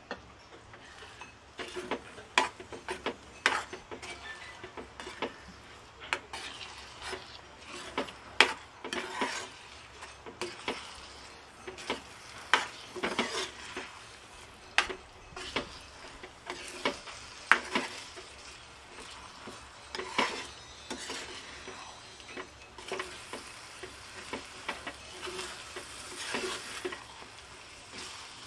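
Steel spoon scraping and knocking against a frying pan in irregular strokes as eggs are broken up and scrambled into an onion-tomato masala, with a soft sizzle of frying underneath.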